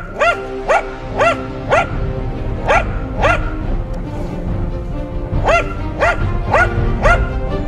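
A dog barking in short, high-pitched barks, about ten in two quick runs with a pause of a couple of seconds between them, over background music.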